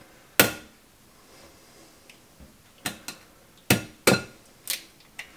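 A raw egg knocked against the rim of a glass mixing bowl about seven times, sharp separate taps: one about half a second in, then a quicker run from about three seconds in, as a one-handed crack is tried.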